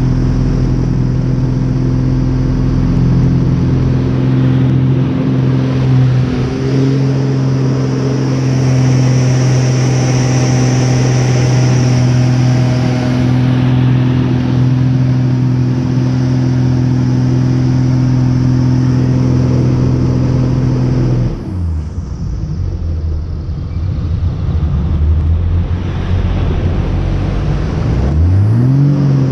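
Aerobatic airplane's piston engine and propeller droning steadily, heard from inside the cockpit. About twenty-one seconds in, the power comes off and the engine note drops sharply, then rises again near the end as power is brought back in.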